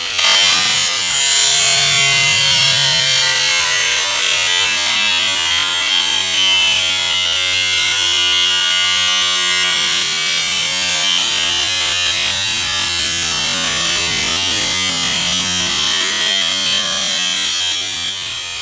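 Angle grinder with a cutoff wheel cutting the sheet-metal body of a washing machine: a loud, steady, high-pitched grinding.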